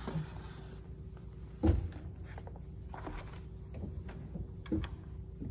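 Handling noises at a church organ console: scattered knocks and clicks as sheet music is arranged on the rack and stops are set, the loudest knock about two seconds in, over a faint steady hum.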